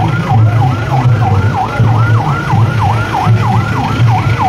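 Siren yelping in a fast, even rise and fall of about four cycles a second, with a loud low thudding at an uneven beat underneath.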